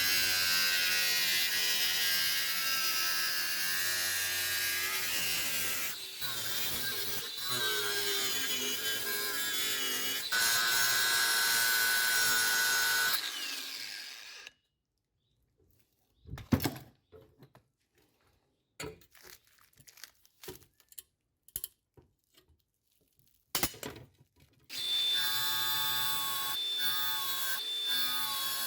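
Power tool grinding and cutting the steel of an old saw blade, running steadily with a whine for about fourteen seconds before stopping. This is followed by several sharp knocks and clicks with quiet between them, then the tool starts running again near the end.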